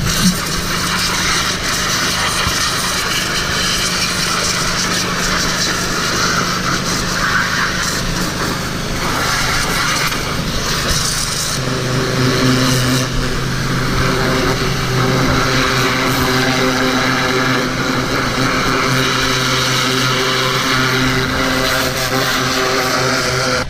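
Gas-engine pressure washer running steadily under the hiss of its high-pressure water jet spraying. About twelve seconds in, the engine note drops to a lower pitch and holds there.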